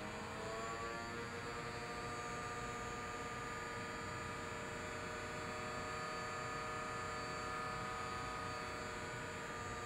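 Mind Flex toy's small blower fan running with a steady whine that rises in pitch over the first second as the fan speeds up, then holds level. The fan speed follows the headset's reading of the wearer's concentration, and here it keeps the foam ball floating.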